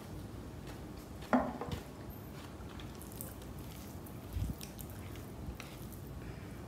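Quiet eating sounds of fingers working through biryani rice, with faint scattered clicks. There is one sharp knock about a second in and a softer low thump about four seconds in.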